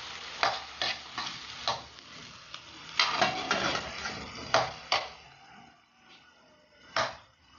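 A stainless-steel ladle stirring and scraping in a wok, clinking against the metal several times, over the sizzle of chopped tomato, onion and ham sautéing in oil. The stirring stops about five seconds in, leaving a fainter sizzle, and there is a single knock near the end.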